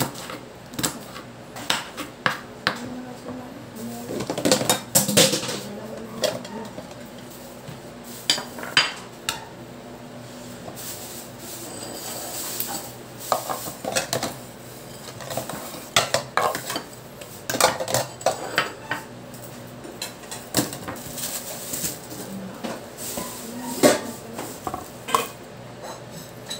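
A kitchen knife knocking and clicking on a wooden cutting board while chopping chilies, then scraping the chopped chilies off the board onto a ceramic plate, with clinks of the knife, board and plate. The knocks come at irregular intervals, not in a steady chopping rhythm.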